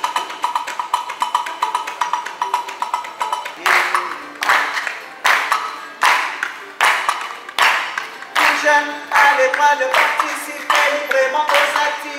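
Live acoustic group music: plucked guitar and light hand percussion with a wood-block-like knock, then from about four seconds in, sharp rhythmic hand claps about every three quarters of a second, with voices singing over them from about eight seconds in.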